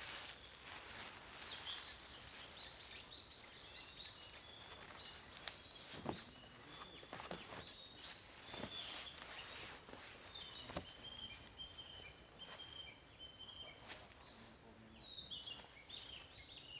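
Small songbirds chirping and trilling faintly, with a run of quick repeated notes about two thirds of the way through. A few light knocks come in between.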